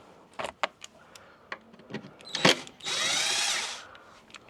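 Power screwdriver backing out a tail light mounting screw. A few light clicks and a sharp tap come first, then about a second in the last half the motor whines, rising as it spins up and falling as it stops.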